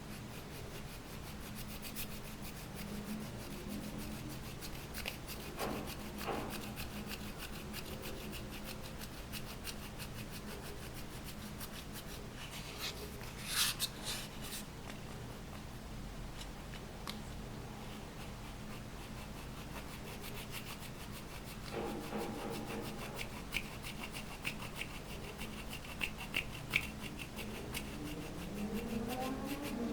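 Slime and makeup being worked by hand: steady soft rubbing and scraping with many small crackles and clicks, a few louder ones in the middle. Near the end, rising squeaky tones begin.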